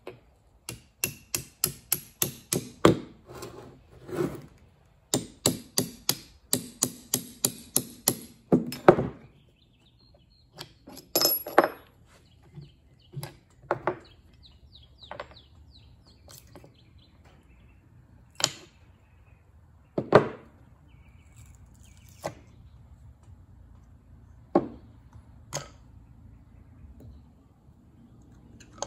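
Hammer striking a punch to drive the pad retaining pins out of a Porsche 996 / Boxster S rear brake caliper: a run of quick sharp taps, two or three a second, for the first nine seconds or so. After that come a few scattered knocks and clinks as the caliper and pads are handled.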